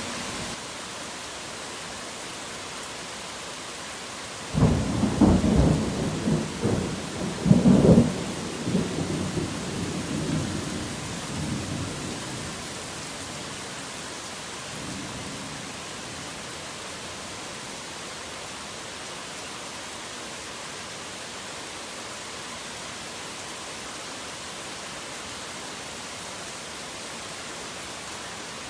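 Steady heavy rain with a thunderclap about four seconds in: a sudden low rumble that peaks twice and rolls away over several seconds.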